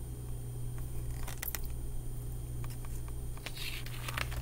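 Steady low hum in a small room, with a few faint clicks and a soft rustle of picture-book pages being handled.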